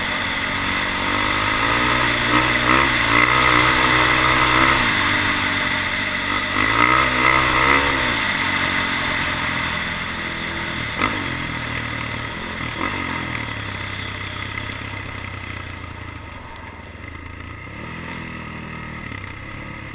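Single-cylinder sport ATV engine under way, revving up and easing off twice in the first eight seconds, then running lower and quieter as it slows, with one more short rev near the end. A single sharp knock about eleven seconds in.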